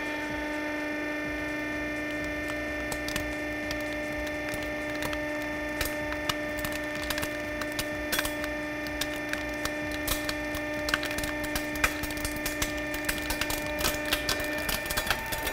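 Hydraulic press running with a steady hum as its plate slowly crushes a plastic toy police car, with sharp cracks and creaks of breaking plastic that come more often toward the end.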